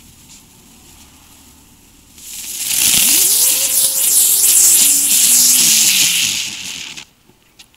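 A firework ground spinner from a Lesli Spinner Pack is lit and burns with a loud hiss for about five seconds. A whine rises quickly as it gets going, then sinks in steps before the spinner cuts out.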